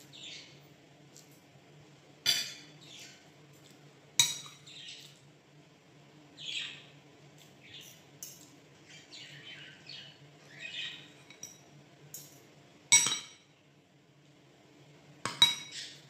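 Metal spoon and fork clinking against ceramic plates and bowls while eating, with a few sharp, ringing clinks spaced seconds apart and a quick cluster near the end. Softer short chirps come in between, from a pet bird.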